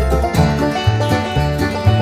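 Background music: an upbeat country-style tune with plucked banjo and guitar notes over a bouncing bass.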